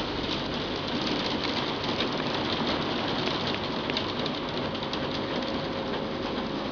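Heavy hail drumming on a glass roof: a dense, steady clatter of countless small hailstone impacts on the glass.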